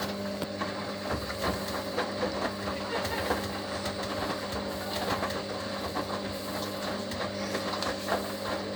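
Hoover HLW585DC washer dryer's drum turning during the final rinse: a steady motor hum, with water and laundry sloshing and clicking in the drum.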